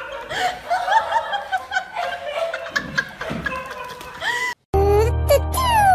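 A run of short, quick laugh-like vocal sounds, rising and falling in pitch several times a second. About four and a half seconds in it cuts off to a moment of silence, and bright children's-style music with a strong bass begins.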